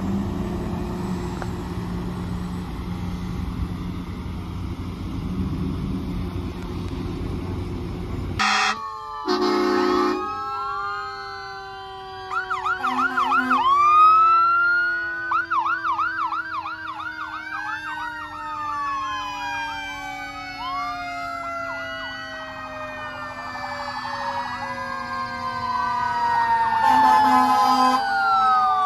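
Passing emergency vehicles: first a low vehicle rumble. About eight seconds in, short horn blasts sound, followed by several sirens at once, wailing and yelping up and down over long, slowly falling siren tones. More horn blasts come near the end.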